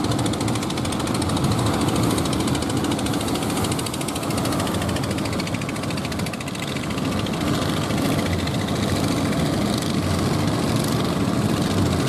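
Fishing boat engines running steadily with a rapid knocking beat, over the wash of waves.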